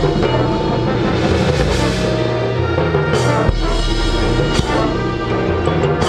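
Marching band playing: held brass chords over a low bass line and drums, with several cymbal crashes.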